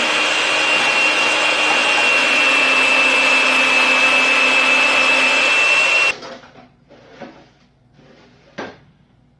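Electric food shredder running steadily with a high whine as it shreds beetroot and jicama, cutting off suddenly about six seconds in, followed by a few faint knocks.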